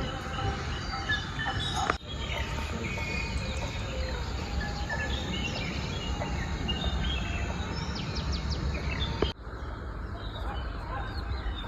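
Several birds chirping and whistling over a steady low background rumble, the sound breaking off abruptly and resuming twice, about two seconds in and about nine seconds in.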